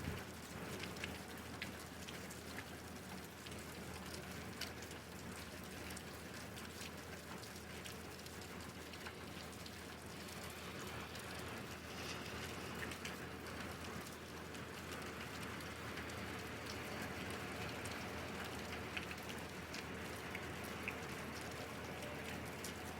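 Steady rain falling, with many individual drops ticking sharply on a hard surface.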